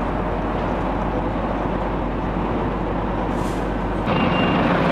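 Fire engine running steadily at the scene, with a short hiss about three and a half seconds in. Near the end the sound steps up louder and a high beep starts.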